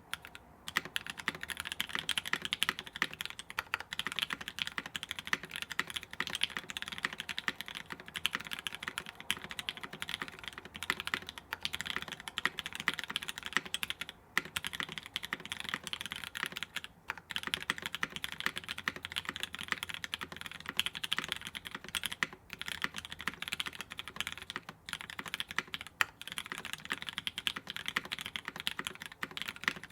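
Fast, steady typing on an Ahgase TKL mechanical keyboard with lubed Gateron Giant switches, GMK keycaps, an aluminium plate and a double o-ring mount: a dense stream of keystroke clacks broken by a few brief pauses.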